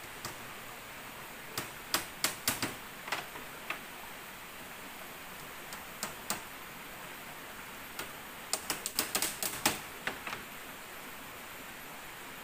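Sharp knocks and taps on bamboo as floor slats are worked by hand, coming in three quick clusters of several strikes each, over a steady rushing hiss of a nearby river.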